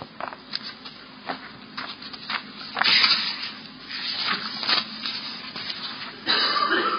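Paper pages rustling and flicking as a book is leafed through, with scattered light clicks and a longer rustle about three seconds in and again near the end.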